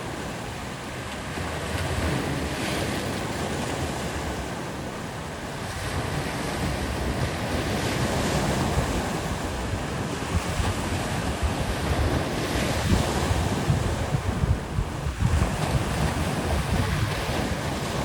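Sea waves washing onto the shore in a continuous surf, surging every few seconds, with wind buffeting the microphone.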